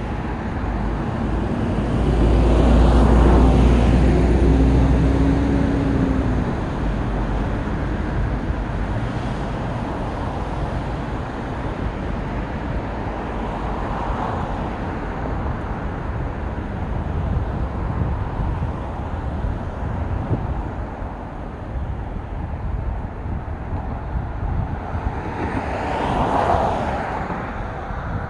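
Steady road-traffic noise. One vehicle passes loudly with a low rumble and hum a few seconds in, and another swells and fades near the end.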